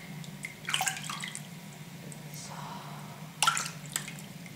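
Bathwater splashing and dripping in a small washbasin as a hand wets and rubs a newborn's head, with short splashes about a second in and again near the end, over a steady low hum.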